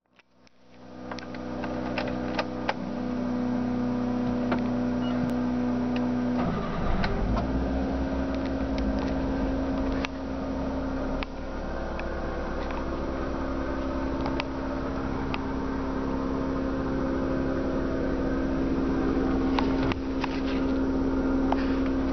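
2006 Subaru Sambar van's 660 cc four-cylinder engine running steadily, heard from inside the cab. Its note shifts about six and a half seconds in. Light clicks and rattles sound throughout.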